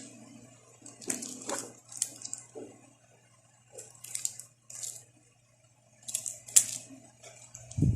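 Parts of a WE G17 gas blowback airsoft pistol being handled during disassembly: three short bursts of small clicks and scrapes, metal and plastic on a hard surface.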